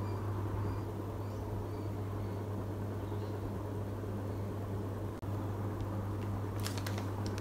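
A steady low hum of room background, then, about six and a half seconds in, a few sharp crackles of a plastic kit bag as a bagged chrome parts tree is handled.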